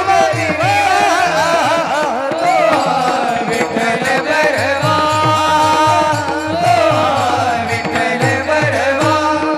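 Devotional bhajan music: a singing voice over a steady beat of pakhawaj drum strokes, with sustained tones holding under the melody around the middle.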